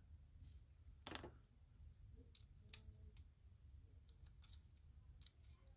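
Faint, scattered clicks and light taps, one sharper click near the middle: small screws and a tool being handled as the frame screws go back into a Shocker XLS paintball marker.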